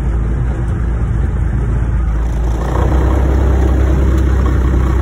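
Pickup truck driving while towing a trailer, heard from inside the cab: a steady low engine and road rumble that gets a little louder about halfway through.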